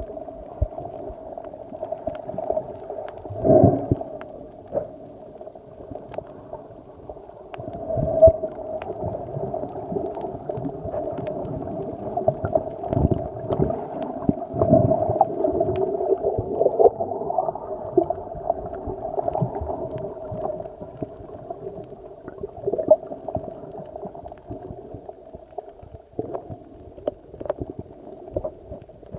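Muffled underwater sound picked up by a submerged phone: a steady hum with gurgling water and scattered knocks, the loudest a few seconds in and about eight seconds in.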